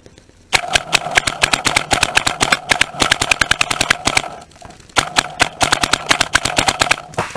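Paintball marker firing rapid strings of shots, starting about half a second in, pausing briefly past the middle, then firing again.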